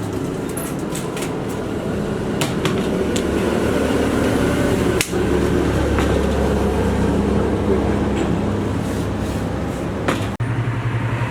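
A workshop machine's motor hums steadily, with a few sharp metal knocks. The hum changes abruptly twice.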